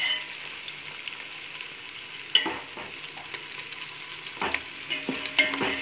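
Sliced onions and green chillies sizzling in hot oil in a stainless steel pot as they soften, stirred with a steel spoon that scrapes and knocks against the pot a few times, about halfway through and near the end.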